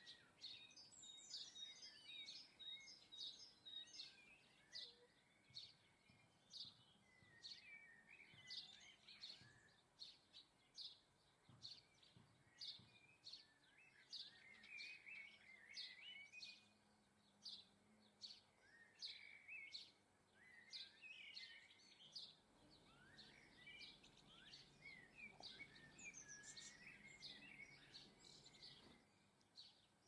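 Faint birdsong from several garden birds: one keeps repeating a short high note about once or twice a second, while others sing warbling, twittering phrases.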